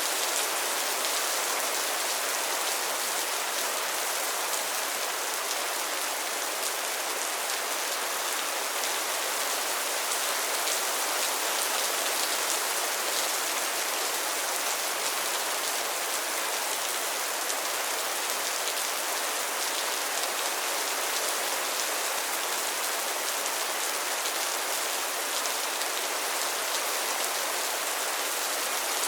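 Steady rain falling on a pond and its lily pads, an even hiss with a fine patter of drops.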